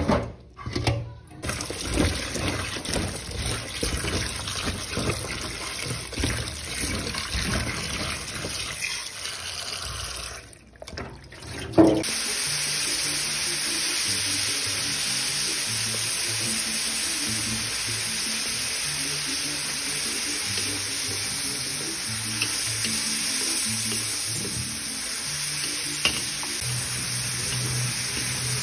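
Water running and splashing over green beans in a metal colander. About twelve seconds in there is a sharp knock, and then a steady sizzle of green beans stir-frying in a hot wok. Background music plays underneath.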